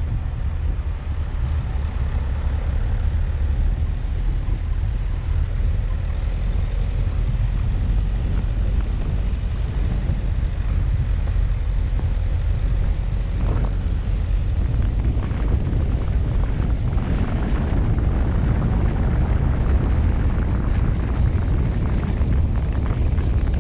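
Car driving along a cracked asphalt lane: a steady low rumble of engine and tyres on the rough surface, with a few short knocks in the second half.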